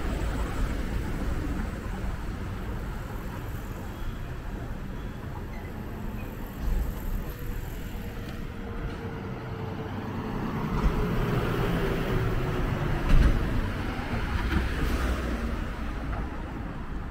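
Street traffic: a steady low rumble of passing cars, with a faint tone that slowly falls in pitch as a vehicle goes by, and a sharp thud about thirteen seconds in.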